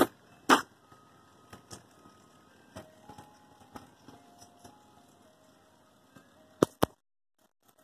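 Ice cream truck jingle playing faintly, a simple melody of single notes, with sharp clicks about half a second in and twice more near the end.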